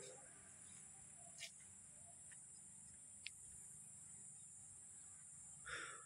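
Quiet field ambience with a steady high-pitched insect drone, like crickets. Two or three faint clicks and a short, slightly louder noise near the end.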